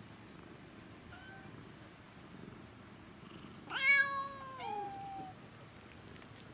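Domestic cat meowing: a short, faint meow about a second in, then a loud, drawn-out meow about four seconds in that falls in pitch and carries on into a second, higher call.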